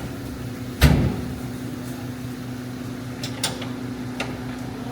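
Heavy metal knocks while an excavator is being taken apart: two loud blows about four seconds apart, with a few lighter clicks between them, over a steady machine hum.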